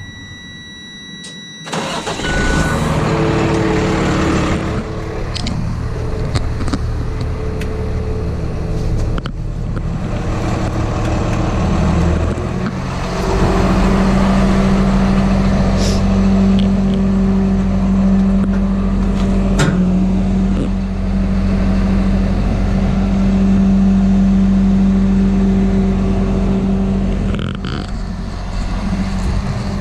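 A steady electronic tone, then a rollback tow truck's engine starting about two seconds in and running steadily, growing louder and steadier about halfway through.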